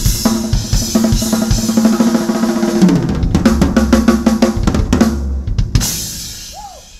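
Drum kit played hard over a backing music track: kick drum, snare and cymbals in busy fills, with a fast flurry of hits in the middle. A last cymbal crash near the end rings out and fades.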